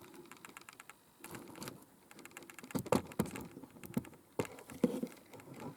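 Irregular small clicks and light scuffs, with a few sharper ticks about three and four seconds in.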